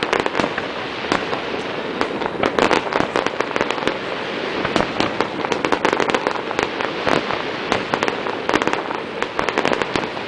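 Fireworks display going off in rapid succession: many sharp pops and bangs in quick clusters over a constant dense crackle.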